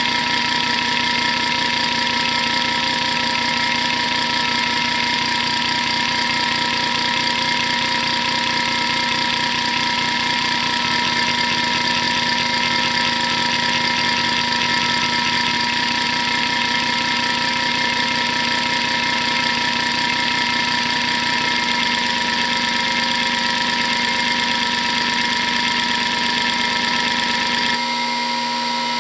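Hitachi DK522C-10 hard drive spinning with a steady whine while its head actuator seeks rapidly through hdmotion's test patterns, making a fast, dense buzzing chatter. The seek chatter changes near the end as the pattern switches.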